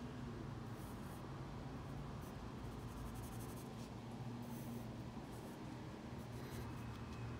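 Graphite pencil scratching on drawing paper in short, faint sketching strokes, over a steady low hum.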